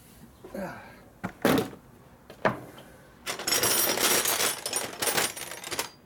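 Metal hand tools clinking and clattering as a drawer of tools is rummaged through: a few sharp knocks, then about two seconds of dense rattling from about three seconds in.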